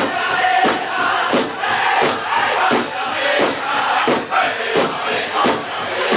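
Powwow drum group singing a chant over a steady beat on a large shared drum, about one and a half strikes a second.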